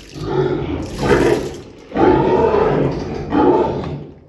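Pig grunting: a run of rough, drawn-out grunts, several in a row.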